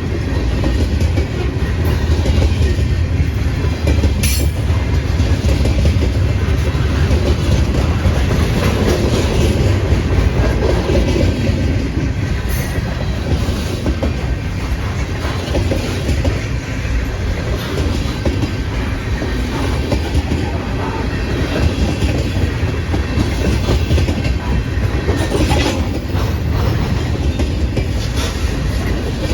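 Freight train cars rolling past at steady speed, the wheels clacking over the rail joints in a continuous loud rumble, with a few sharp metallic clicks.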